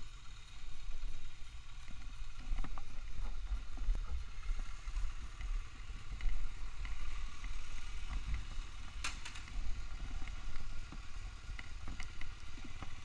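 Rustling, clicks and knocks of a rider's jacket, gloves and gear rubbing and bumping close to a helmet-mounted camera, over an uneven low rumble. One sharper knock comes about nine seconds in.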